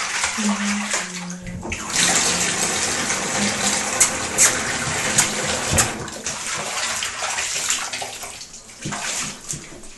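Bathwater splashing and sloshing in a bathtub as a Cavalier King Charles spaniel puppy is washed by hand, with a few sharper splashes around the middle and the water noise easing off near the end.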